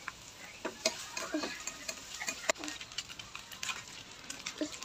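Chopped onions sizzling in hot oil in a steel pan, with irregular clicks and scrapes of a spatula stirring them against the pan.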